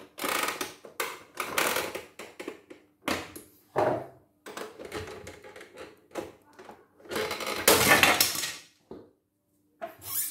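Screwdriver and hands working the plastic housing of a CNY embroidery machine: scraping, clicking and rattling of plastic in short bursts as the cover is loosened and pulled off, with a longer, louder clatter about seven seconds in.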